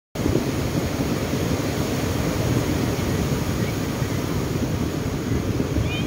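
Wind buffeting the microphone, a steady low rumble, over the wash of small waves breaking on the shore.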